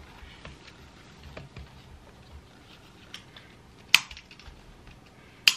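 A small dog's harness being put on and fastened: faint rustling and small clicks, then two sharp clicks of the harness buckles snapping shut about a second and a half apart near the end.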